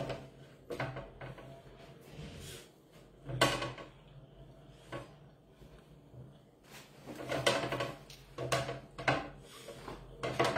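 Irregular clinks and knocks of a fork on a ceramic plate and against the table, a few scattered strokes with a cluster of them about seven to nine seconds in.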